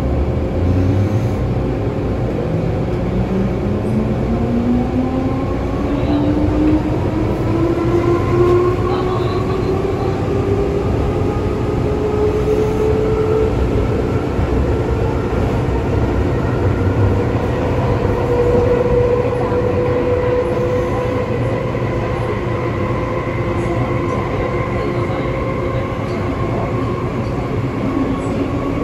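MTR M-train electric multiple unit accelerating away from a station, its traction motor drive giving a loud howling whine. The whine rises in pitch for about ten seconds, then levels off, over the steady rumble of wheels on rail heard from inside the carriage.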